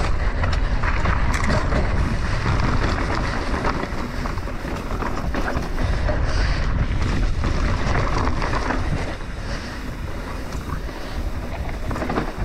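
Wind buffeting the camera microphone over the rumble of a mountain bike's tyres rolling on a dry, loose dirt trail, with scattered sharp rattles from the bike. The rush eases a little about nine seconds in.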